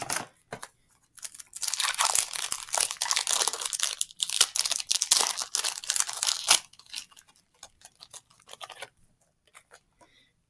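Yu-Gi-Oh! booster pack's foil wrapper being torn open and crinkled: a dense crackling from about a second in until past six seconds, then a few scattered light rustles and clicks.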